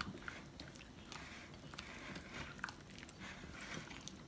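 Chicken pieces being tossed with tongs through a thick flour, cornstarch and egg coating in a glass bowl: faint wet squishing and scraping, with scattered soft clicks.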